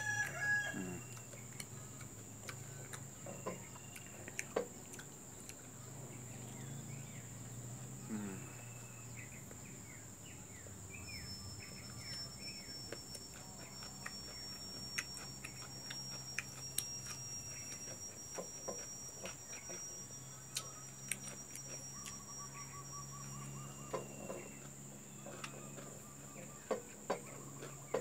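Scattered short bird calls, typical of chickens, over a steady high whine, with small clicks and taps of fingers and rice against a plate.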